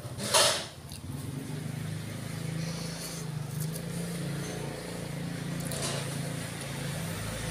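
A person slurping egg noodles from a bowl of soup, in two short bursts: a loud one about half a second in and a weaker one near the end. A steady low engine hum runs underneath.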